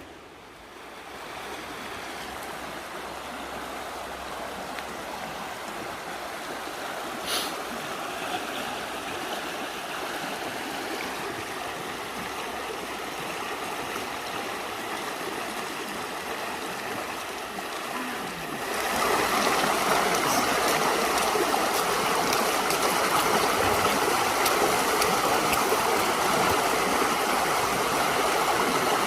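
A river's water rushing and gurgling steadily, growing noticeably louder about two-thirds of the way through.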